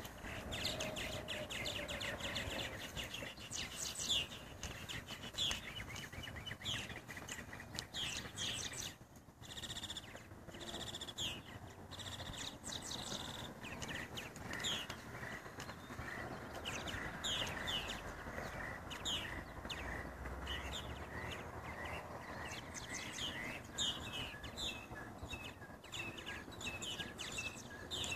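A colony of purple martins calling from their martin houses: a dense, continuous stream of short chirps and chattering notes.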